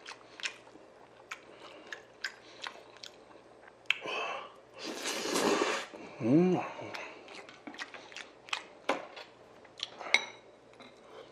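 Close-up eating sounds: wet chewing and mouth clicks, a loud slurp of spicy cold noodles about five seconds in, and a brief hum of the voice just after. Near the end a metal spoon clinks against a bowl and rings.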